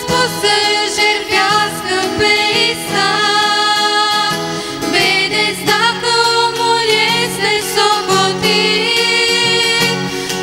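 Three women singing a Romanian hymn together, accompanied by a strummed acoustic guitar.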